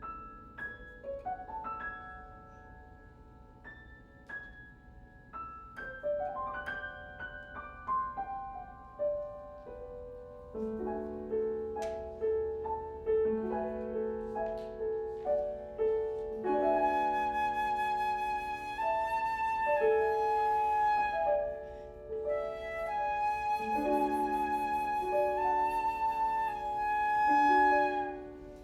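Flute and piano duo playing a contemporary classical piece. The piano plays alone at first with short, ringing high notes, then moves to held chords, and about halfway through the flute enters with long sustained notes over the piano.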